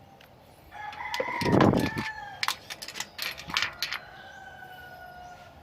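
A rooster crowing, a long call starting about a second in, with a fainter drawn-out crow following. A few sharp clicks are heard in the middle.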